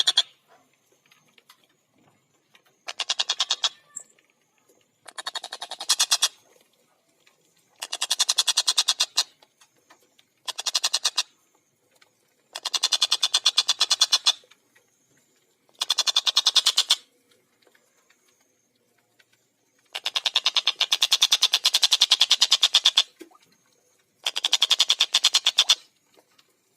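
Stork-billed kingfisher (tengkek buto) calling in fast, tightly spaced 'kek-kek-kek' rattles. About eight bursts of one to three seconds come one after another, with short silent pauses between them.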